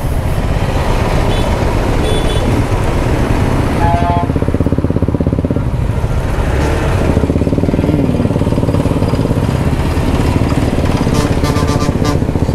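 Single-cylinder Hero XPulse 200 motorcycle engine running steadily at riding speed, with wind rushing over the helmet microphone.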